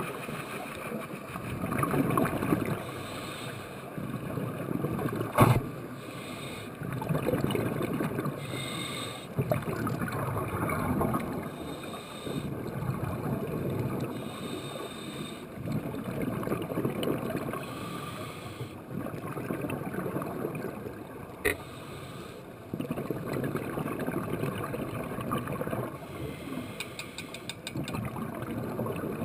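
Underwater sound through a camera housing: scuba divers' exhaled regulator bubbles rumbling and gurgling in swells every few seconds, with two sharp clicks.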